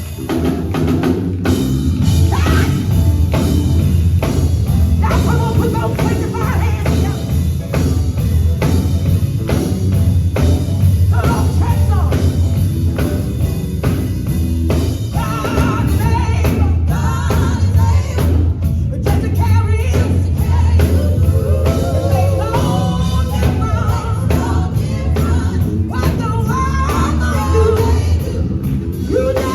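Live gospel music: a vocal group singing over a band with drum kit and a strong, steady bass line.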